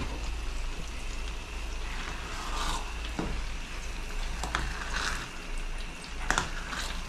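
Food frying in hot oil in a pan, sizzling steadily with swelling hisses. A few sharp knocks of a utensil against the pan cut in partway through.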